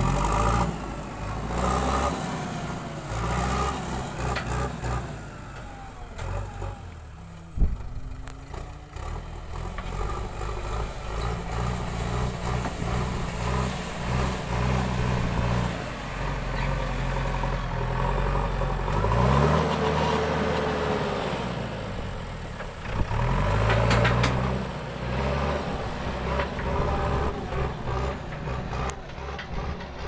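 JCB 3DX backhoe loader's diesel engine working under load as the front bucket pushes and levels soil, its note rising and falling with the throttle and climbing twice in the second half. A single sharp knock about a quarter of the way in.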